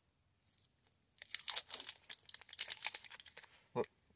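Thin plastic wrapper of a meat-stick dog treat being torn open and crinkled by hand, a dense run of tearing and crackling starting about a second in. A single short, lower thump follows near the end.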